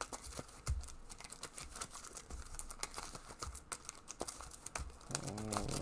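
Trading cards handled and shuffled by hand: a run of light, irregular clicks and flicks of card stock, with a few soft low thumps.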